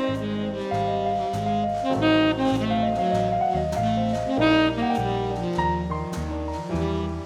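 Background jazz music: a saxophone-led tune over a walking bass line and light drums.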